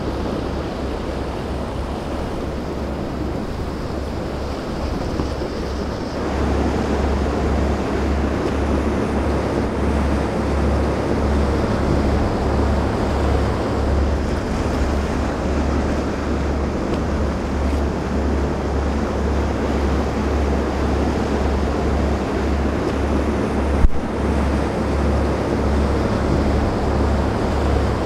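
Wind buffeting the microphone over the steady wash of waves and surf. It gets louder about six seconds in, and a single sharp click comes about four seconds before the end.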